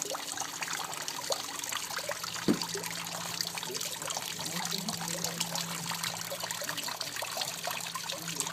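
Water dripping and trickling off a Gunnera-leaf fountain into a pool: a quick, continuous patter of drops with an echoey ring. One drop lands louder about two and a half seconds in.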